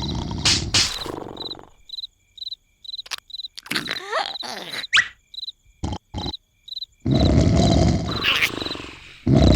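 A cartoon larva snoring with a loud, low rasp. The snore breaks off for a quiet stretch in which crickets chirp steadily, two or three times a second, with a few short squeaks and clicks. The snoring starts again about seven seconds in.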